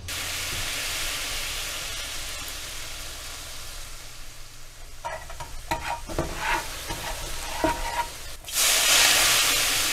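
Sizzling sound, like food frying in hot oil, with scattered crackles and pops about halfway through; the sizzle turns suddenly louder near the end, then fades.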